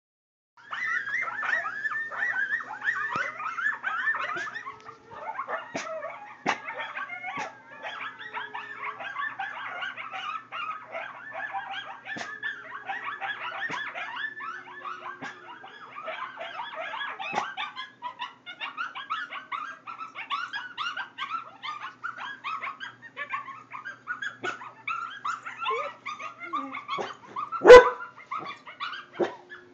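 A recorded wolf pack howling and yipping, many short gliding calls overlapping, played through speakers. Near the end a dog gives one loud, sudden bark.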